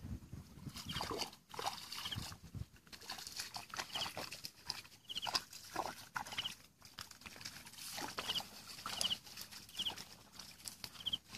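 Footsteps wading and splashing through shallow muddy paddy water, with rustling of rice plants as she pushes into them near the end. A short, high chirping call repeats about once a second behind it.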